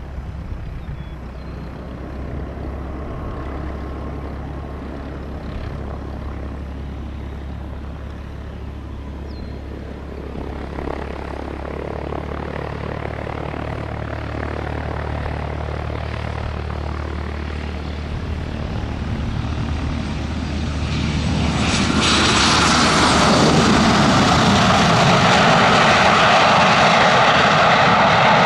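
Dassault Falcon 7X three-engine business jet landing: the low rumble of its turbofans grows steadily, then about three quarters of the way in it turns into a loud jet rush as it rolls past, with a tone falling in pitch as it goes by.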